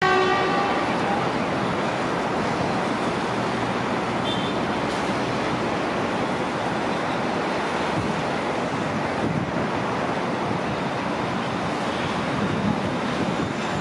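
A train in motion, a steady, even rush of wheel and track noise that holds at one level throughout.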